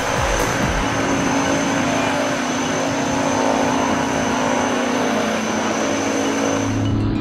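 Twin-engine turboprop aircraft at takeoff power on its takeoff run and lift-off, steady engine and propeller noise with a high whine. The sound changes abruptly about seven seconds in to a low hum.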